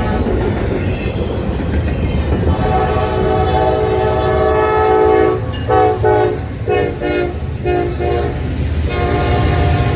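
Diesel locomotive air horn sounding a chord of several notes in a horn show: one long blast, then a quick run of short toots, then another long blast near the end. Underneath is the low rumble and wheel clatter of the moving train.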